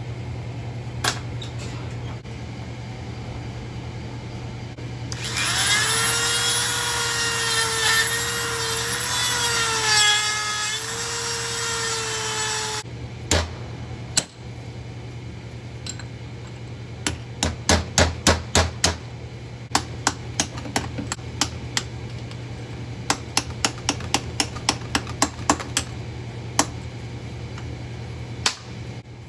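A small power tool runs for about seven seconds, its whine wavering in pitch under load. After a pause, a long series of sharp metal taps follows in quick runs, as the stuck bearing is worked off the Yanmar 1500 front-axle portal spindle shaft. A low steady hum runs underneath.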